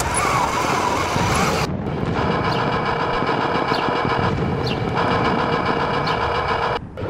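Heng Long RC Panther tank (Torro edition) running, its built-in sound unit playing a steady simulated tank-engine sound. The sound breaks off briefly about two seconds in and again near the end.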